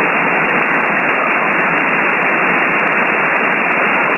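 Steady hiss of shortwave band noise from an RTL-SDR v3 receiver in upper-sideband mode on the 20-metre amateur band, tuned between stations with no signal coming through. The receive filter gives it a thin, radio-like sound with no deep lows or high treble.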